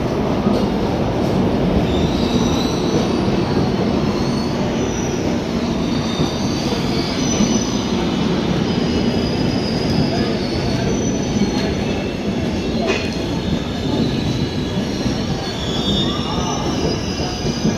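LHB passenger coaches of an Indian express train rolling past along the platform: a steady rumble of the running gear with a high, wavering squeal from the wheels, and a single clack about thirteen seconds in.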